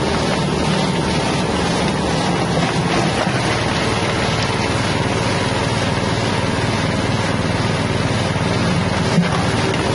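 Small 6.5 hp petrol engine running steadily under load, driving a hammer-mill grinder that is grinding material as it pours out of the outlet chute.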